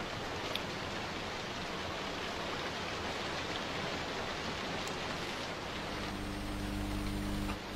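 A steady, even hiss like falling rain. A low steady hum joins it about six seconds in.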